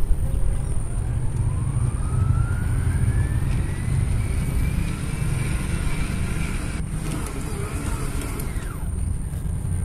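Electric stand mixer running, its motor giving a steady low hum as the dough hook works flour, egg and crushed ice into a stiff bread dough. A motor whine rises in pitch over the first four seconds, holds, then drops away just before the end.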